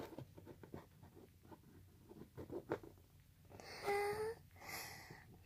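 Light, scattered taps and small scrapes of plastic toy figures being handled and set down on a tabletop, followed about four seconds in by a short hum in a child's voice and a breathy sound.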